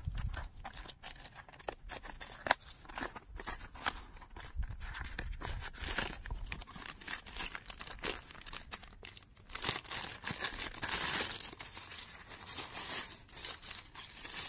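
Paper and plastic packaging of a piston ring set being torn open and unwrapped by hand: a continuous run of tearing, rustling and crinkling, louder in two stretches near the middle and towards the end.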